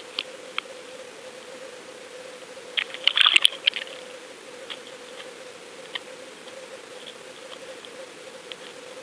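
Underwater sound picked up by a GoFish camera on a fishing line: a steady faint hum with scattered sharp clicks, and a short burst of crackling clicks about three seconds in.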